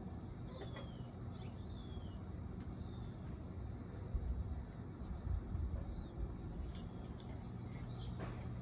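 Birds chirping: a string of short, falling whistled notes over a low rumble. A few sharp clicks near the end come from an Amazon parrot's beak working on dried fruit.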